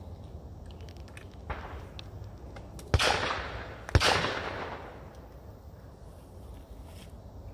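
Two shotgun shots about a second apart, each followed by a fading echo lasting about a second, fired at clay targets.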